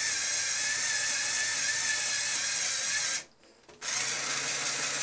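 Lego electric motor and gears driving Lego linear actuators, a steady whirring with a high whine. It stops about three seconds in and starts again under a second later as the lift car changes direction.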